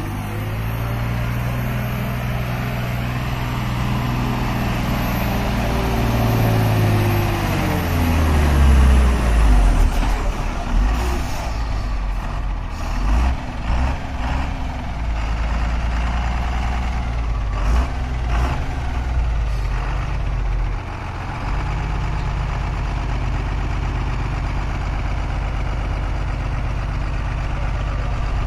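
Laden heavy truck's diesel engine working hard, its revs and a high whine falling away about eight seconds in. Knocks and rattles follow through the middle, then the engine runs steadily near the end.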